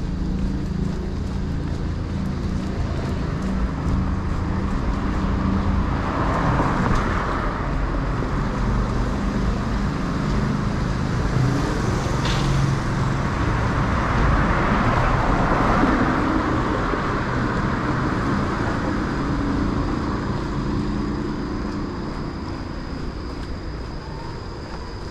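Street traffic: a vehicle engine running close by, with cars passing in two swells of tyre and engine noise, about six seconds in and again around fifteen seconds, fading toward the end.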